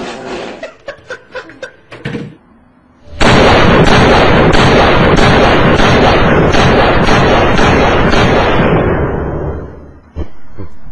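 Gunshot and explosion sounds edited together to play a computer startup tune. First comes a quick run of about eight sharp shots over two seconds. After a short pause, a long, loud blast of dense gunfire noise fades out about ten seconds in, and another burst follows just before the end.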